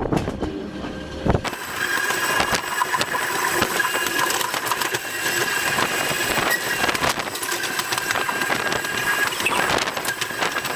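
Small electric seafront railway car running along its track: a steady high whine over a rattle of wheels and bodywork, with many scattered clicks. A low rumble drops away about a second and a half in.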